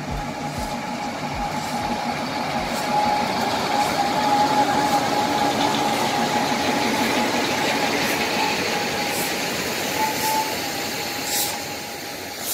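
Narrow-gauge diesel locomotive running slowly past, loudest as it passes a few seconds in, with a steady high-pitched whine over the engine sound and a few low knocks in the first two seconds. Near the end the steam locomotive it tows rolls by, with a couple of sharp clicks.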